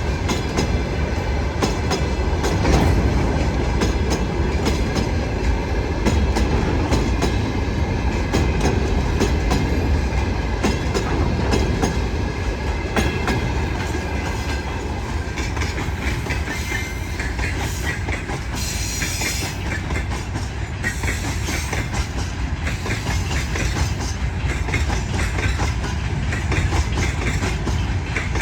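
Freight train wagons rolling past at speed, their wheels knocking steadily over the rail joints in a continuous clickety-clack, with a brief high-pitched noise about two-thirds of the way through.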